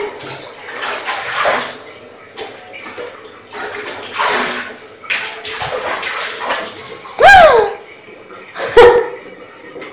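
Water sloshing and splashing in a plastic tub as a small child plays in it with a mug, swelling and fading irregularly. Near the end, a short loud voice with a rising-then-falling pitch, then another brief one.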